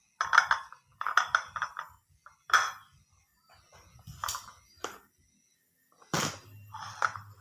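Kitchenware being handled, a string of sharp clinks and knocks from dishes or cookware, the loudest near the end.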